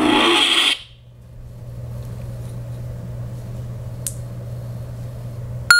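Lightsaber sound-font effect from a Plecter Pixel Neopixel saber: a loud, many-toned effect cuts off abruptly less than a second in. The saber's low steady idle hum runs on underneath, with faint clicks and, near the end, a sharp click with a short beep.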